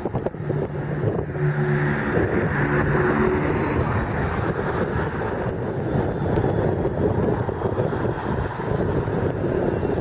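Steady low rumble of a diesel locomotive idling, heard under wind noise on the microphone, with a brief humming engine note a second or two in.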